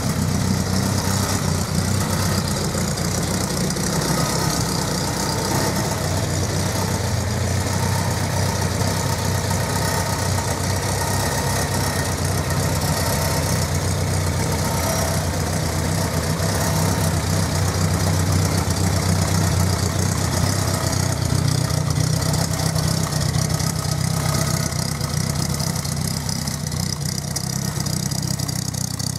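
Willys MB's four-cylinder Go Devil flathead engine idling steadily.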